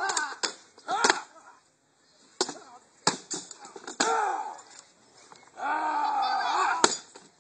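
Sharp clacks of weapons striking round wooden shields in a sword-and-shield sparring bout, about six irregularly spaced blows, the loudest near the end.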